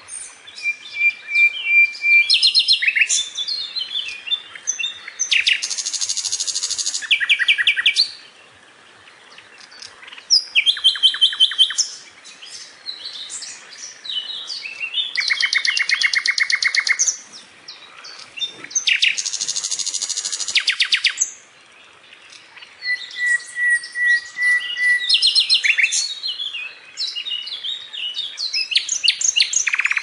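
Nightingale singing. Its phrases vary: fast runs of loud repeated notes and trills, and now and then a single long whistled note, with short pauses between phrases.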